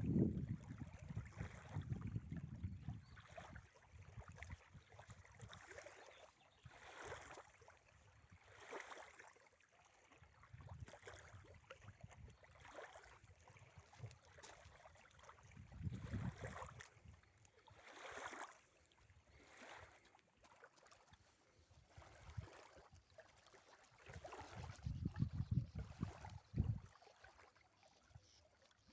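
Wind gusting on the microphone in low rumbles, three times, with soft water splashing and lapping against a small sailboat's hull in between.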